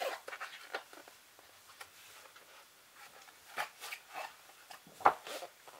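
Pages of a hardcover art book being turned by hand: irregular paper rustles and flicks, the sharpest about five seconds in.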